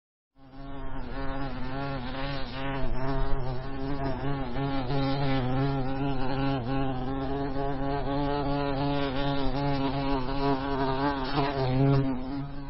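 Honey bee buzzing close to the microphone, one steady buzz whose pitch wavers up and down. It starts about half a second in and runs without a break.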